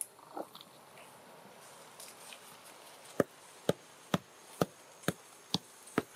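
Hand hoe chopping into loose, dry soil. About three seconds in, a steady run of sharp strikes begins, about two a second, seven in all.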